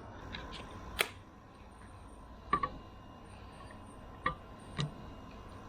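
A handful of separate sharp clicks and taps, four or so spread a second or more apart, from the camera being handled and checked close to the microphone.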